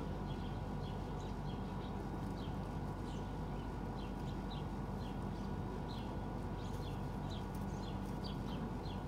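Small birds chirping, with short high chirps coming a few times each second, over a steady low hum.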